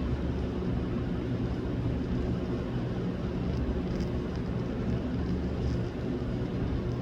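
Steady low machine hum with an even rumble and hiss.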